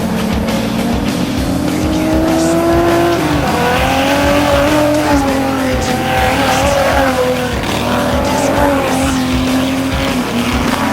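Several Stock Omega race cars running hard on a dirt track, their engine notes rising and falling and overlapping as they accelerate and lift, with one note climbing for a couple of seconds and then dropping sharply about three seconds in.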